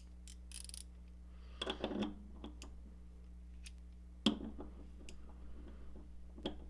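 Scattered metal clicks and clinks of a small 3/8-drive hand ratchet and a bar being handled and fitted together, with a short cluster about a second and a half in and one sharp click about four seconds in, over a steady low hum.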